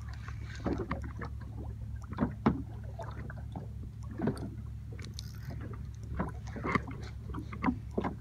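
Choppy sea water slapping and lapping against the side of a small boat in irregular splashes, over a steady low rumble.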